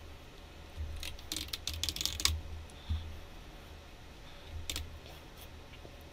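Computer keyboard typing: a quick run of keystrokes about a second in, then a couple of single clicks later, over a faint low hum.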